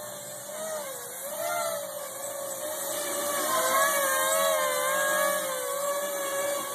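Custom V-tail multirotor in flight, a quadcopter/tricopter hybrid: its brushless motors and propellers give a steady whine whose pitch wavers up and down with the throttle, loudest about four seconds in.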